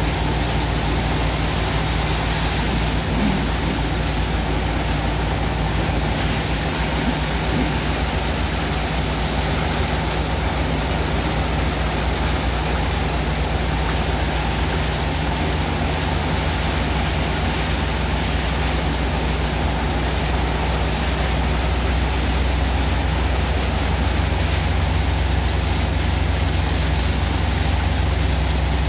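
Water jets from high-pressure hoses spraying and splashing into wet sand to make a slurry, with the steady low drone of the pump engine underneath. The rush of water and the drone run evenly throughout.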